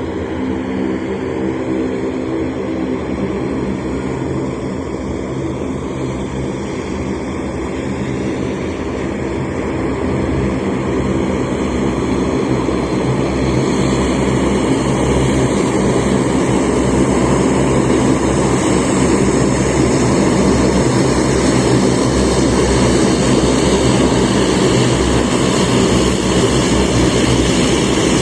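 De Havilland Canada Dash 8 Q400's twin Pratt & Whitney PW150A turboprop engines and propellers running as the airliner taxis in to its parking stand. The sound grows steadily louder from about a third of the way in as the aircraft comes closer.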